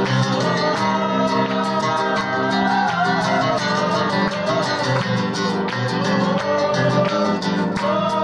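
Oud and acoustic guitar playing an instrumental chaabi passage together. Quick plucked notes run throughout, under a wavering, bending melody line.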